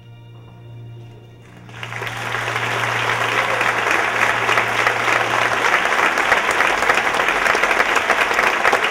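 The last held notes of the music die away, then a theatre audience breaks into applause about two seconds in and keeps clapping steadily. A low held tone sounds under it and fades out about six seconds in.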